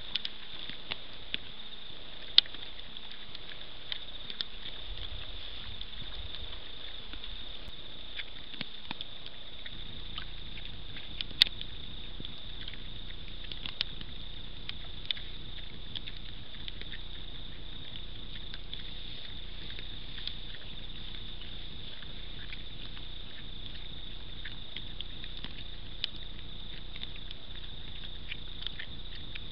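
Feral pigs feeding close to the camera: scattered sharp clicks and crunches of rooting and chewing in the grass, over a steady high-pitched drone. A low rumble sets in about ten seconds in.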